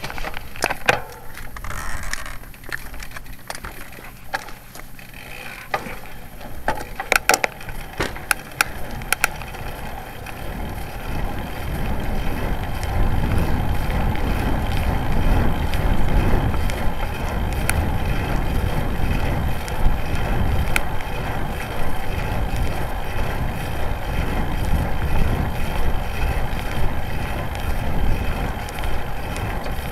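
Road bike rolling on an asphalt path. The first seconds are fairly quiet, with a few sharp clicks and knocks. From about ten seconds in, a steady low rumble of wind on the microphone and tyres on the tarmac takes over as the bike gets up to speed.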